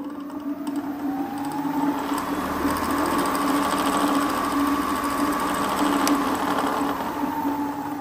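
Inmotion RS electric scooter's dual 2000 W hub motors spinning the wheels freely off the ground at full throttle in power stage four. The motor whine rises in pitch for about two seconds, holds high and steady over a lower hum, then begins to fall near the end as the wheel slows. A tiny vibration that the owner notices comes from a front tire whose bead is not seated centrally.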